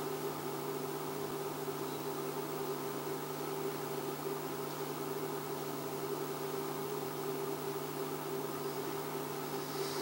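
Steady low hum with hiss: background room tone, with no strike or ringing of the raised hand bell.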